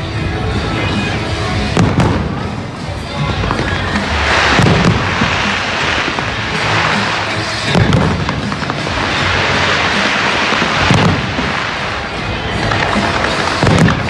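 Fireworks display going off at close range: heavy bangs of shells bursting about every three seconds, five in all, with dense crackling filling the middle stretch between them.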